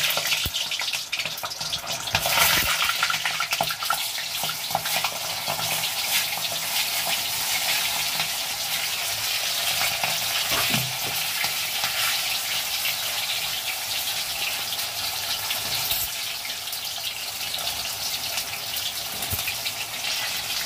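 Whole peeled onions frying in hot refined oil in a kadhai: a steady dense sizzle and crackle that grows louder about two and a half seconds in, as more onions go into the oil. The spitting comes from water left on the washed onions.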